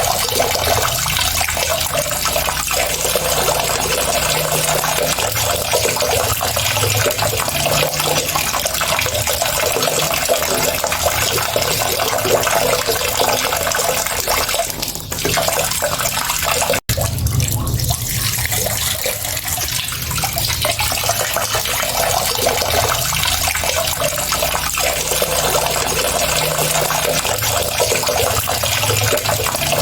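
Steady running water, a continuous rushing splash with no change in strength, broken by a split-second dropout about halfway through before it carries on unchanged.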